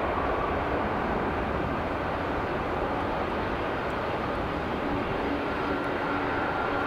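Airbus A330-200's twin jet engines at takeoff power: a steady, broad rush of engine noise as the airliner rolls down the runway and rotates. A faint steady hum joins in about five seconds in.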